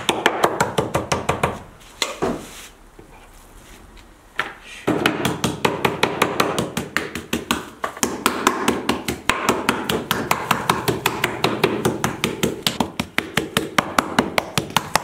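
Wooden meat mallet pounding thin slices of beef under plastic wrap on a wooden cutting board: rapid, steady strikes, several a second, with a pause of a few seconds about two seconds in.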